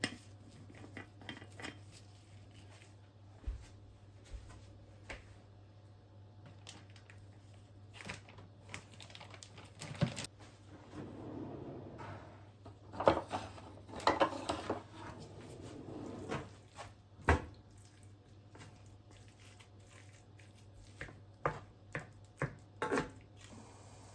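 Scattered knocks, clicks and clinks of kitchen items such as dishes and cutlery being handled, with a few louder knocks in the middle and short stretches of rustling, over a steady low hum.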